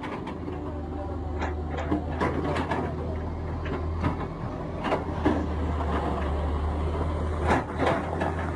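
A crowd's voices and scattered knocks over a steady low drone of an excavator's engine running.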